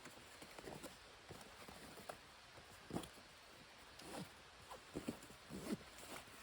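Scattered soft knocks and rustles at an irregular pace, the sharpest about three seconds in and another cluster near the end.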